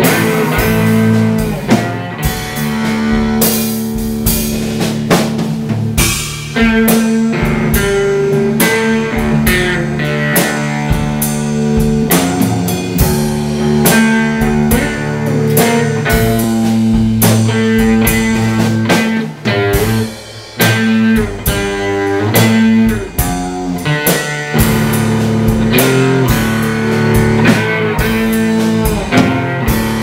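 Blues-rock music played on guitar over a drum kit with a steady beat, dipping briefly about two-thirds of the way through.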